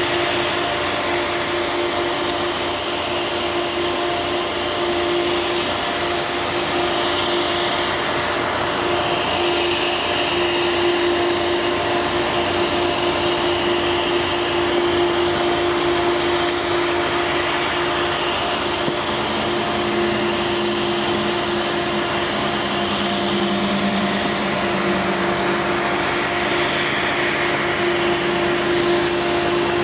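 A steady machine drone: an even hiss with a constant low hum, and a second, lower hum coming in about twenty seconds in.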